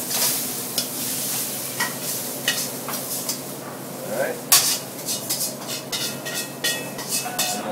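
Noodles and vegetables sizzling in a hot iron wok while metal tongs stir and clink against it. About four and a half seconds in comes one loud sharp clank, then a run of lighter metal knocks and scrapes.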